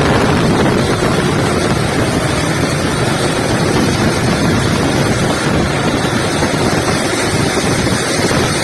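Steady, loud wind buffeting on the microphone with a low rumble; no horn sounds.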